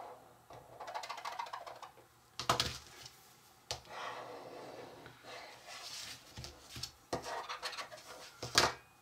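Hands handling soft dough and a small baking tray: scraping and rubbing with a few sharp knocks, the loudest about two and a half seconds in and just before the end.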